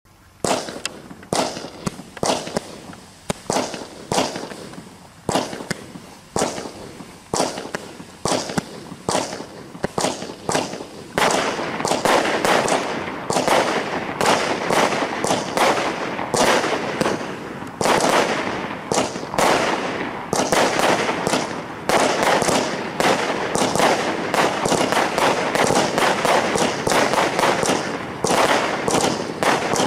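Multi-shot consumer firework cake firing shot after shot, with sharp reports about two a second at first. From about eleven seconds in the shots come thicker and run together into a near-continuous volley.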